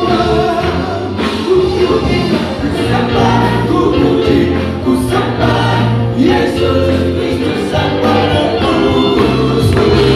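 Live gospel praise music: voices singing together over a band, with long held low notes and a steady beat.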